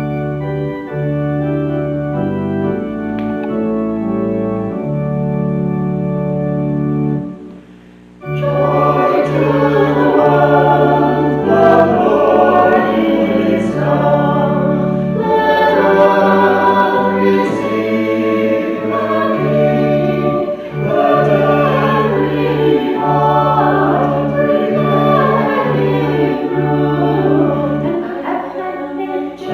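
Organ music: held organ chords, a brief break about eight seconds in, then voices singing a hymn with the organ.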